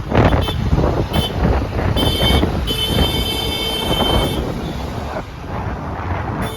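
Wind buffeting the microphone and road noise from a moving motorbike in traffic. A high steady horn sounds twice, briefly about two seconds in and then longer for about a second and a half.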